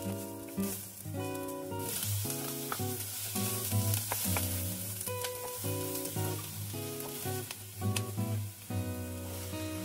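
Red bell pepper frying in a nonstick saucepan. It sizzles, loudly from about two seconds in, while a wooden spatula stirs and taps against the pan.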